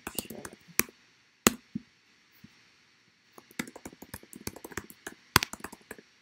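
Typing on a computer keyboard: quick runs of key clicks, with a gap of about two seconds in the middle broken by a couple of single louder keystrokes.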